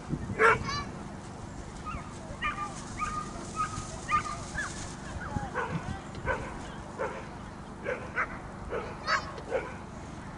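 A dog barking repeatedly in short barks, roughly one every second, the loudest about half a second in.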